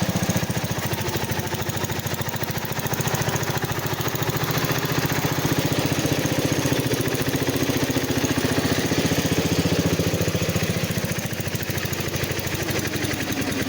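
A small engine running steadily with an even, rapid firing beat as it pulls a stuck riding mower; its pitch rises a little midway through.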